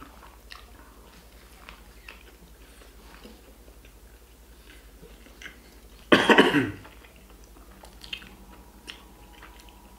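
Close-up chewing of a burger: faint wet mouth clicks and smacks, with one short, loud vocal sound falling in pitch about six seconds in.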